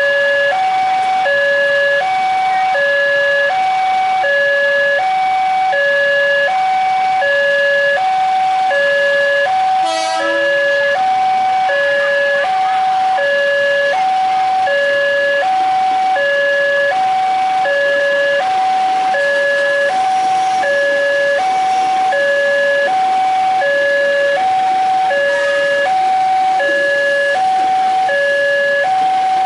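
Railway level-crossing warning alarm sounding from its pole-mounted loudspeaker: an electronic two-tone signal alternating high and low, about one high-low pair a second, repeating without a break. It warns that a train is approaching the crossing.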